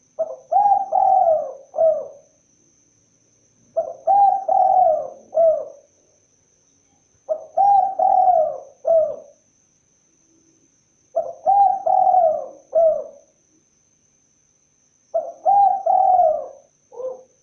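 Spotted dove (tekukur) cooing: five phrases of three or four soft coos, each phrase about two seconds long with a longer middle note, repeated about every four seconds.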